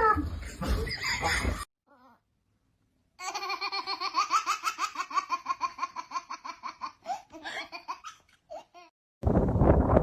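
Laughter in a long run of quick, even bursts, about five a second. A loud rushing noise starts near the end.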